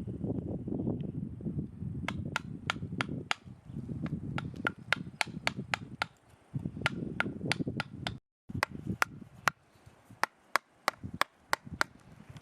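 Sharp, repeated strikes of a carving chisel being driven into a hard pine knot, about three a second in short runs of taps.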